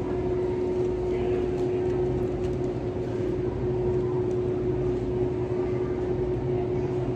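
Steady machine hum of a grocery store, such as its refrigerated cases and air handling: an unchanging drone with one constant mid-pitched tone over a low rumble.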